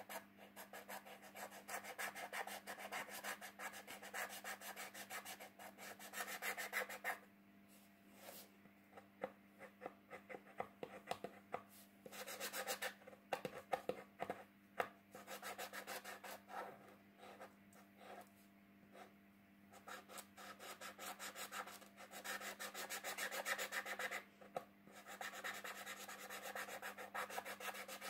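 Felt-tip marker scratching on paper in quick back-and-forth strokes while colouring in a letter, in long runs with a few short pauses.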